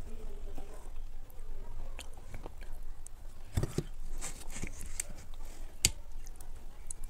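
Close-miked chewing and biting, with a few sharp clicks and crunches, loudest about halfway through and again near the end.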